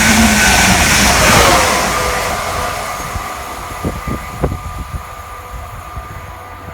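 A train passing through the station and moving away, its running noise fading steadily over the first three seconds or so, followed by a few short low thumps.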